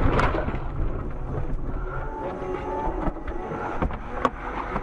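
A car ploughing off a snowy road after a crash: a low rumble that dies away over about two seconds as it comes to rest, leaving a quieter hum with scattered clicks and one sharp knock near the end.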